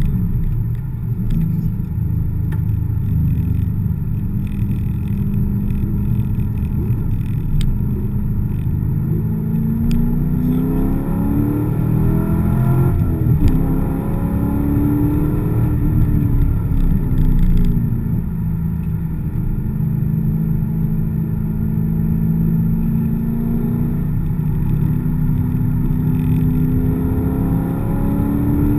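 Chevrolet Corvette's V8 engine heard from inside the cabin as it is driven on a wet track. The engine note rises and falls several times as it accelerates and eases off, then holds steady for a while before rising again near the end. Constant tyre and road noise runs underneath.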